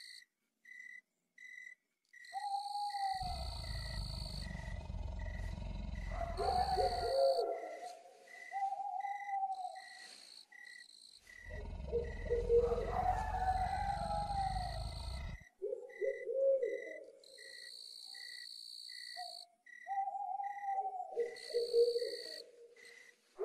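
Night insects chirping steadily, about two chirps a second, with higher trills that start and stop, and short lower calls that rise and fall in pitch. Two stretches of low rumble come and go.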